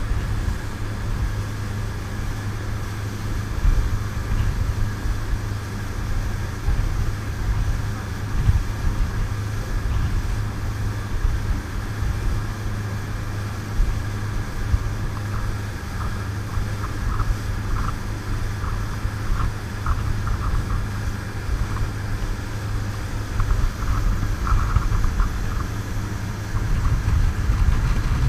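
Dive boat under way at speed: its engine drones steadily under the rushing hiss of the wake and spray, with short light rattles in the second half.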